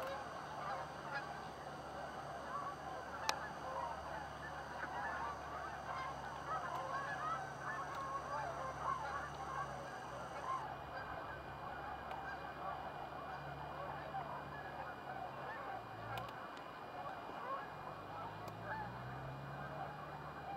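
A large mixed flock of swans, geese and ducks calling all at once: a dense, continuous chorus of overlapping honks and calls.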